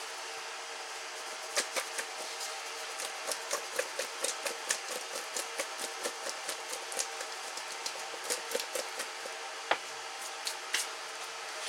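Buttered potato chunks tossed in an enamelware bowl, clattering against its sides in quick, irregular clicks and knocks, with one sharper knock near the end, over a steady background hum.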